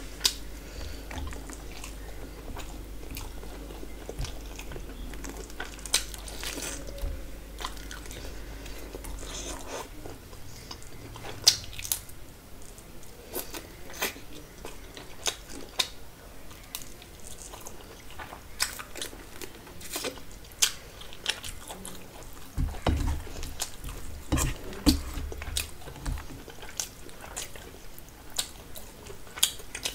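A person eating close to the microphone: chewing and crunchy bites of fried food, with many small wet mouth clicks. A steady low hum underneath stops about a third of the way in.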